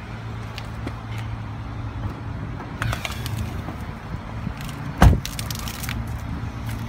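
A 2012 Dodge Charger idling steadily, a low even hum, with one loud thump about five seconds in.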